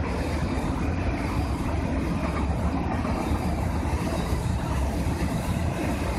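A container freight train's loaded flat wagons rolling past, the wheels on the rails making a steady low rumble.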